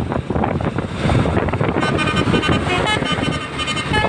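Maro three-trumpet, 17-tone telolet horn playing a quick melody of short notes at changing pitches, starting about halfway through. Before the notes there is a loud, noisy rumble.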